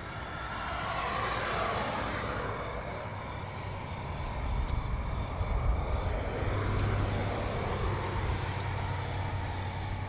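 Street traffic ambience: vehicles pass, one swelling about a second in and another with a deeper engine hum around the middle. Crickets chirp steadily throughout.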